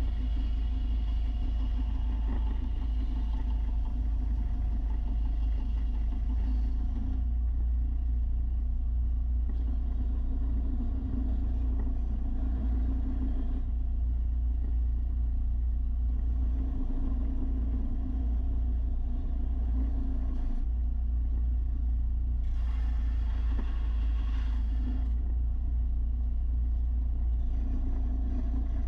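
Belt sander with a 300-grit belt running steadily. A higher grinding hiss comes and goes every few seconds as the edge of a steel lawn mower blade is pressed against the belt and lifted off.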